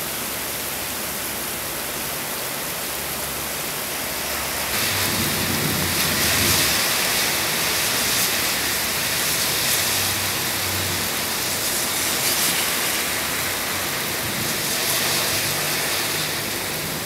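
Heavy rain pouring down in a steady hiss, which grows louder about five seconds in.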